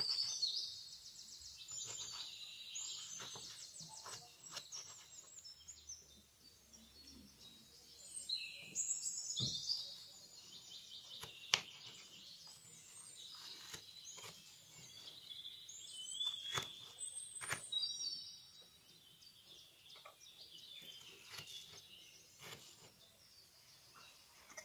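Birds chirping and calling throughout, with short sharp clicks of a small knife cutting a miniature potato on a little wooden cutting board; one click about halfway through is the loudest.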